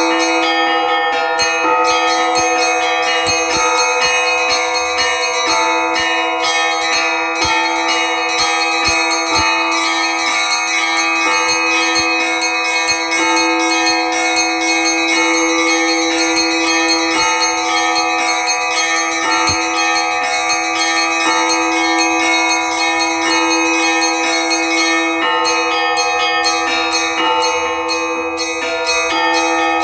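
Orthodox church bells rung in a continuous peal (zvon): quick, dense strikes of several bells over the steady ringing tones of the lower bells.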